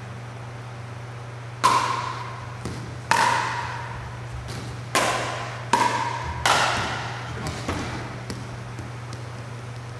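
Pickleball paddles hitting a hollow plastic pickleball back and forth in a rally: five sharp, ringing pops, the last three coming quickly, with lighter ball bounces and taps in between.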